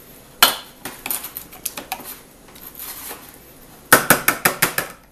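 Metal spoon clinking and scraping against a stainless steel bowl while stirring thick tzatziki: scattered clinks at first, then from about four seconds in a fast, even run of about seven clinks a second as the stirring turns to beating.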